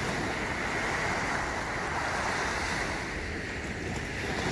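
Small ocean waves breaking and washing up a sandy beach, swelling and easing, with wind rumbling on the microphone.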